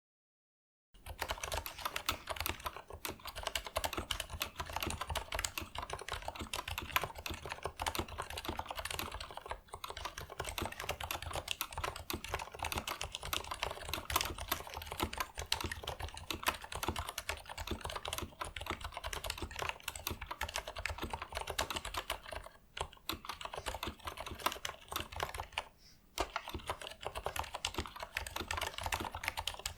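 Fast, continuous typing on a Leopold 980M mechanical keyboard with Cherry MX Silent Red switches, linear switches dampened to cut the bottom-out and return clack. The typing starts about a second in and breaks off briefly a few times.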